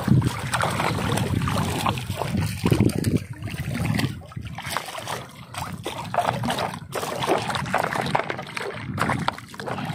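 Shallow seawater splashing and sloshing in short, uneven strokes.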